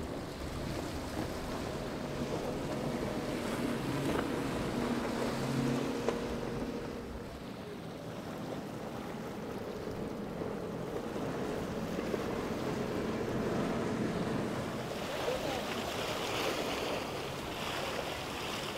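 Powerboat engines droning past at speed, mixed with a steady wash of hull spray and waves. The water hiss grows brighter in the last few seconds.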